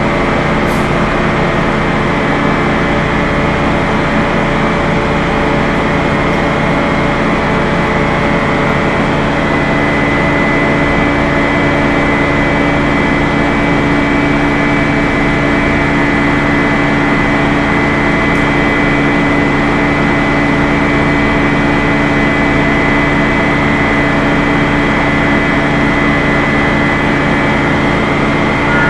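Aircraft carrier machinery running: a steady mechanical drone made of many held hum tones, with a higher whine growing stronger about ten seconds in.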